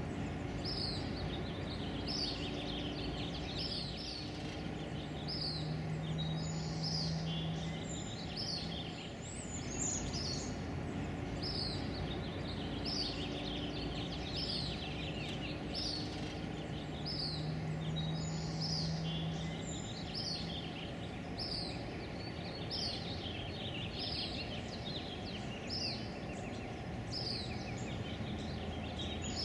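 A small bird calling over and over, a short high chirp that falls in pitch, about one and a half times a second, over a steady low outdoor background noise.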